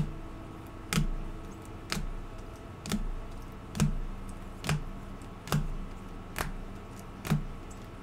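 Rigid plastic toploader card holders clicking against one another as a stack of trading cards is shuffled through one card at a time. The clicks come at a steady pace of about one a second.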